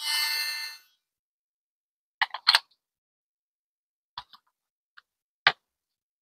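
Small objects and packaging being handled on a table: a brief rustle under a second long, then a double click and a few single sharp clicks and taps spaced out by silence.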